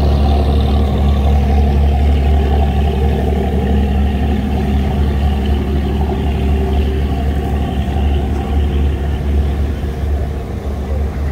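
A large engine running steadily at a constant pitch, with a loud, deep hum.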